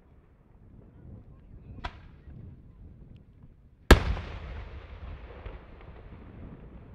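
Daytime aerial firework shells bursting: a lighter report about two seconds in, then a loud sharp bang about four seconds in that trails off in a long echo.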